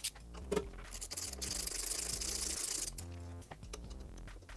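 Ratcheting box wrench clicking as it backs out a 10 mm hex-head bolt from a motorcycle battery bracket: a quick run of ratchet clicks lasting about two seconds, starting about a second in, followed by a few single clicks.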